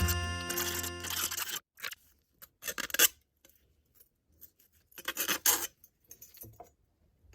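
Background music fading out, then several short scraping and rasping sounds of thin metal being worked by hand, in separate bursts with quiet between them.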